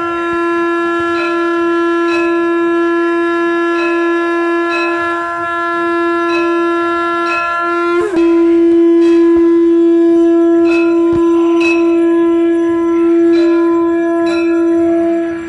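Conch shell (shankh) blown in two long, steady blasts with a short break about eight seconds in, while a temple bell is struck repeatedly, roughly once a second.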